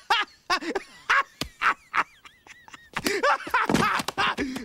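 A voice making short wordless sounds, with a thin wavering high tone in the middle and a run of strained voiced sounds near the end.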